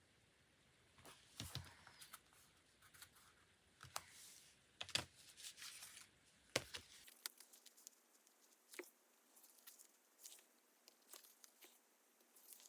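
Quiet paper crafting sounds: paper or tape tearing and crinkling, with scattered light taps and clicks, the loudest bunched a little before the middle.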